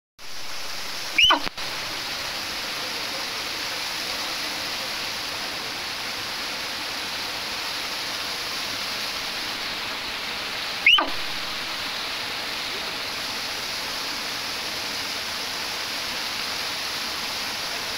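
A small waterfall and stream rushing steadily over rocks. Twice, about a second in and again about eleven seconds in, a brief loud sound sweeps sharply down in pitch.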